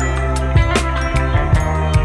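Background music with a steady drum beat, about two and a half hits a second, over a bass line and guitar.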